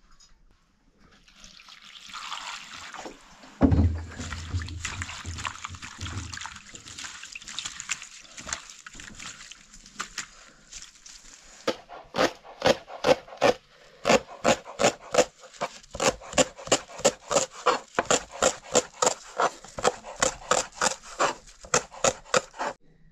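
Water trickling and splashing for about the first half, with one thump about four seconds in. Then a kitchen knife chops green stalks on a plastic cutting board in quick, even strokes, about four a second, stopping just before the end.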